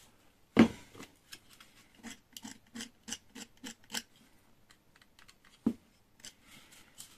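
A sharp knock, then a run of light clicks at about three or four a second: the blade of a snap-off utility knife being clicked out notch by notch. Another knock comes near the end.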